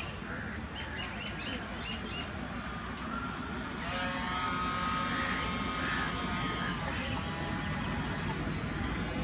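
XK Edge A-430's brushless motor and propeller whining in flight, a steady high tone that comes in about four seconds in, louder, and holds for a few seconds, over a constant rushing noise. A few short high chirps sound about a second in.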